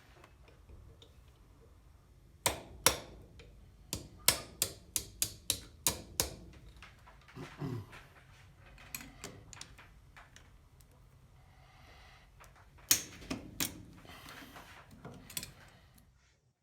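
Sharp metal clicks and knocks from hand tools and starter motor parts on a workbench: two loud knocks a few seconds in, then a run of about eight evenly spaced taps, and another cluster of knocks near the end.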